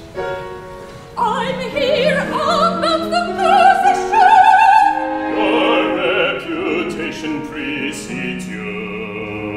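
Operatic singing with wide vibrato over a small chamber instrumental ensemble. After held instrumental notes, the singing enters about a second in and climbs in pitch, and several voice and instrument lines overlap after that.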